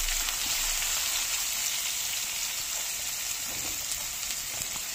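Chopped onion sizzling steadily in hot mustard oil in a kadhai, freshly added and frying over a low flame.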